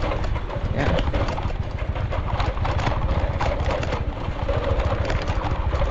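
Car being driven: a steady low rumble of engine and road noise.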